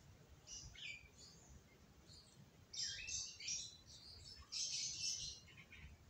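Bird chirping: short high chirps in three brief clusters, some sliding down in pitch.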